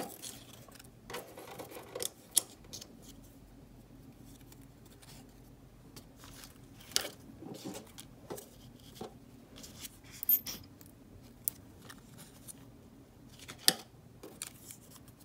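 Paper rustling with scattered light taps and clicks as cut-paper leaves are handled and pressed onto a paper craft on a wooden tabletop; the sounds come irregularly, a few sharper clicks standing out.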